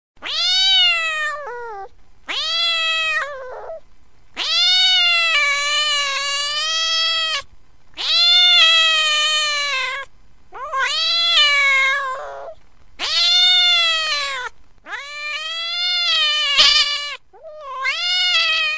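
A domestic cat meowing in a series of about eight long, wavering calls, each lasting one to three seconds, with short pauses between them. There is a brief click near the end.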